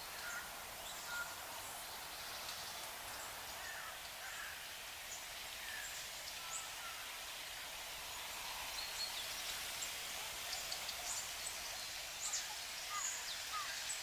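Small birds chirping and twittering in many short, scattered calls, growing busier toward the end, over a steady outdoor hiss.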